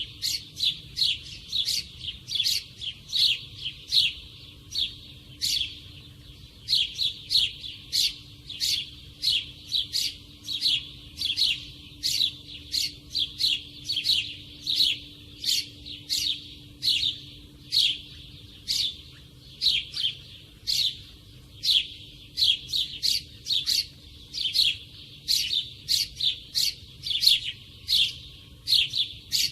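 A sparrow chirping over and over, short sharp chirps at about two a second with a few brief gaps.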